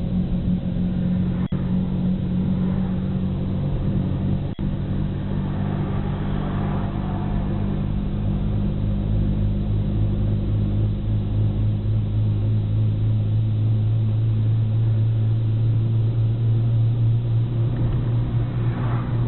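Car engine and tyre noise heard from inside the cabin while driving, a steady low drone. The engine note shifts lower about eight seconds in and holds there.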